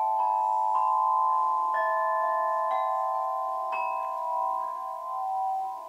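Crystal harp: its clear crystal rods struck one at a time with a small striker, about one note a second for five notes. Each note rings on and overlaps the others into a sustained bell-like chord that slowly fades.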